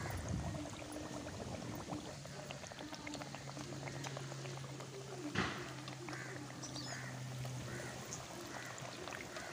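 Adhirasam dough discs deep-frying in hot oil in an aluminium kadai, the oil sizzling and crackling steadily. A steady low hum runs under it through the middle, and a single knock about five and a half seconds in, likely the slotted ladle against the pan.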